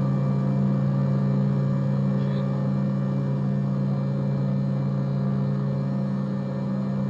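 Jet airliner cabin in flight: the steady, even drone of the engines and airflow heard from inside the cabin, with a low hum and fainter higher tones over a constant rush.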